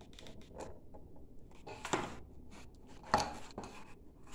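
Handling noises of hands pressing felt around a plastic-wrapped doll-shoe form: rustling and rubbing with two sharper knocks, about two and three seconds in, the second the loudest.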